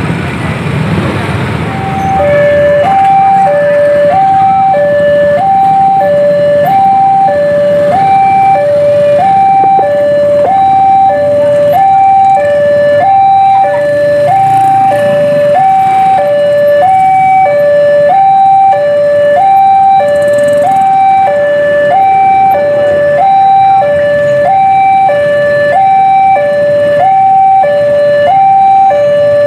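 Railway level-crossing warning alarm: an electronic two-tone signal alternating high and low, about one high-low pair a second, starting about two seconds in. It signals an approaching train as the crossing barrier closes. Motorbike engines idle under the start.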